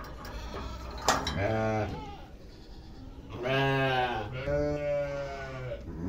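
Sheep bleating three times in long, drawn-out calls, the last one the longest. A sharp knock comes about a second in.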